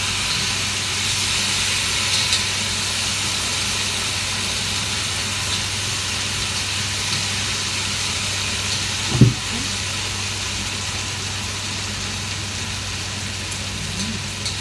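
Eggplant and bitter gourd sizzling in a wok over a gas flame, a steady hiss over a low steady hum, with one sharp knock about nine seconds in.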